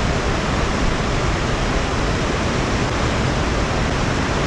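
River water spilling over a low dam, a steady, loud rush of white water with no let-up.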